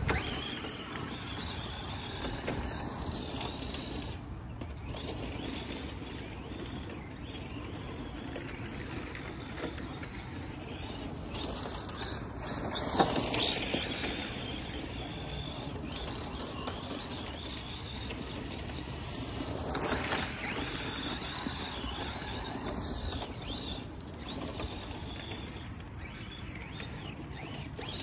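ARRMA Mojave 4S RC desert truck's electric motor whining up and down in pitch as it accelerates and drifts, with tyres scrabbling on loose dirt. It gets louder twice, about thirteen and twenty seconds in, as it comes nearer.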